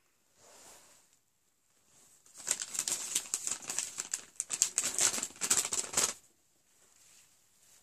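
Close crackling rustle of a clothing top with shiny silver stripes being tugged and adjusted, starting about two seconds in and lasting about four seconds.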